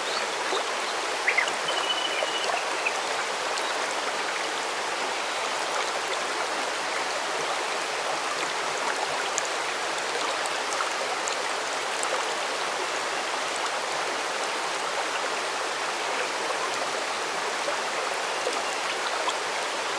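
A stream running steadily with an even rushing sound, and a bird calling briefly between about one and three seconds in, with a few faint high chirps later.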